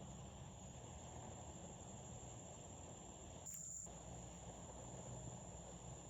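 Faint, steady high-pitched insect chirring, crickets, over low background noise.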